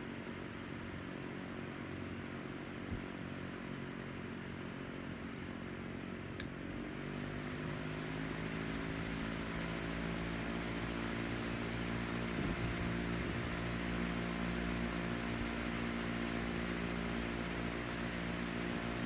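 1967 Hunter commercial-grade 16-inch oscillating table fan running with a steady motor hum and blade noise. About a third of the way in there is a sharp click, and then the hum rises in pitch and gets louder as the motor speeds up, settling at a faster steady run. The sound fits the fan being switched to a higher speed.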